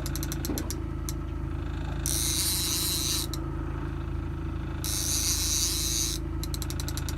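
Boat engine running steadily underneath a fishing reel working during the fight with a salmon: stretches of high hissing alternate with runs of rapid, even clicking.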